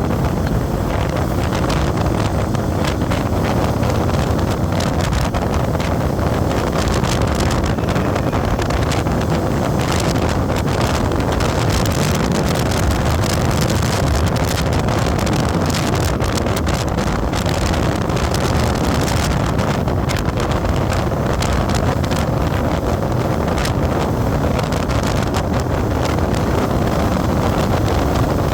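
A vehicle moving along a road, with wind rushing over the microphone: a steady, loud rumble of engine and road noise with wind buffeting crackling over it.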